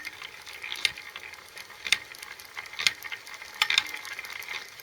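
Honda CBF125 engine gears turned slowly by hand: a scratchy metallic rattle with a sharp knock about once a second. The knock is a high, sprung-out tooth on the clutch ring gear striking the mating gear.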